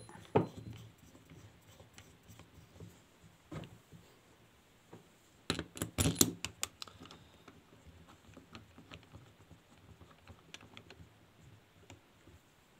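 Light clicks and taps of a four-piston brake caliper and its metal adapter bracket being handled and fitted together by hand, with a short cluster of louder clicks about halfway through.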